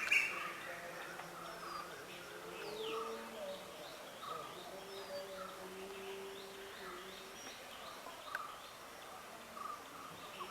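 Outdoor ambience with birds calling: short chirps repeated every second or so, a few quick falling whistles, over a steady background hiss.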